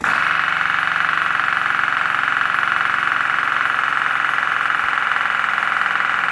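Pneumatic air hammer running continuously on CO2 from a 12 oz paintball cylinder, a loud, fast, even rattle that starts abruptly; the cylinder is being run all the way down.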